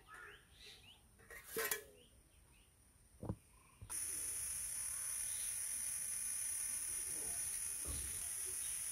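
A steel spoon clinks and scrapes against a steel cooking pot as rice is scooped out, with a couple of short ringing knocks. About four seconds in, a steady high-pitched insect drone starts abruptly and carries on.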